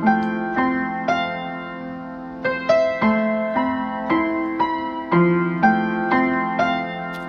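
Background piano music: a slow, gentle melody of single struck notes over held lower chords.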